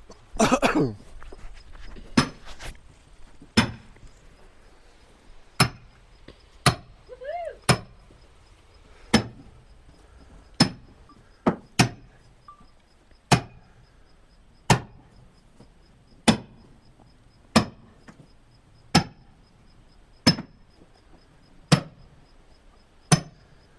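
Repeated blows of a splitting maul, about one every second and a half, each a sharp hit with a slight metallic clink, splitting a black oak half-log into quarters.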